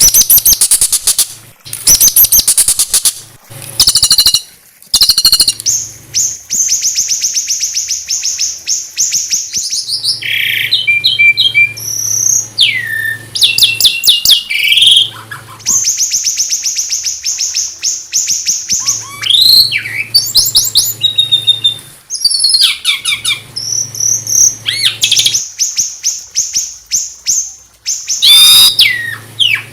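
Small songbirds singing fast, high trills and rattling phrases, broken up by short gliding whistles.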